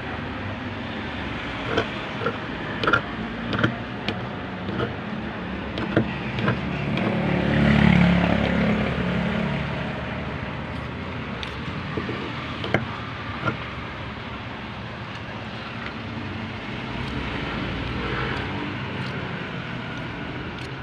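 Scissors snipping through cotton trouser fabric in short, scattered clicks over a steady background hum. A vehicle passes about eight seconds in, rising and then fading.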